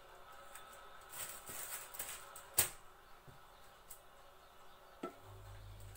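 Quiet handling of almond-paste dough on a paper sheet: soft rustling and a few sharp taps as pieces are cut and moved, the loudest tap about two and a half seconds in. A low steady hum starts near the end.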